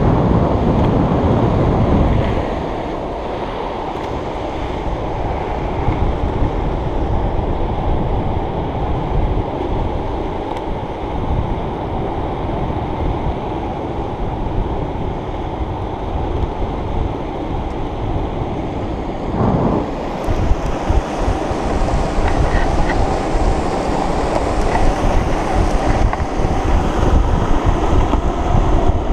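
Wind rushing over the camera microphone with the rumble of skateboard wheels rolling fast on asphalt. It is louder for the first couple of seconds and turns gustier in the last third.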